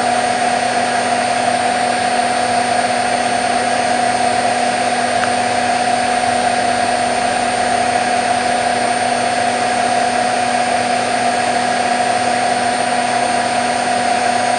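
Candy Nova CN146 front-loading washing machine spinning at full speed on its 1400 rpm final cottons spin: a steady motor whine and rushing drum noise that holds constant, with no change in speed.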